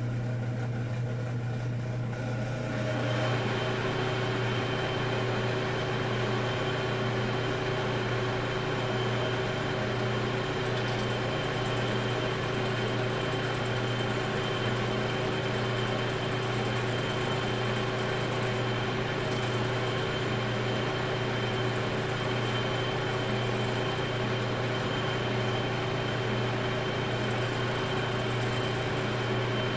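Metal lathe running with a brass valve body spinning in the chuck: a steady low hum, with the spindle coming up to speed about three seconds in, adding a steady whine that holds. The tool is taking a light facing cut across the valve's water-eroded sealing surface.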